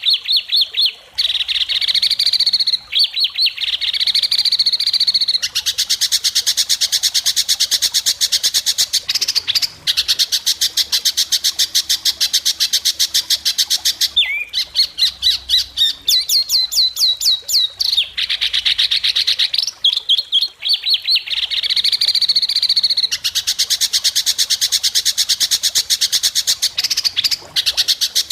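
White-rumped shama singing continuously in long, fast phrases of sharp, rapidly repeated high notes that change pattern every few seconds. This is the 'besetan' chatter and learned imitations of other birds ('masteran') that songbird-contest keepers train it for.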